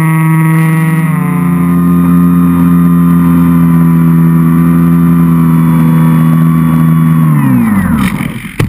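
Turnigy L3010B-1300 brushless outrunner motor turning an APC 10x6 propeller, heard from a camera on the foam flying wing: a loud steady whine that winds down, falling in pitch, as the throttle is cut for landing. Near the end come knocks and clatter as the wing touches down on the grass.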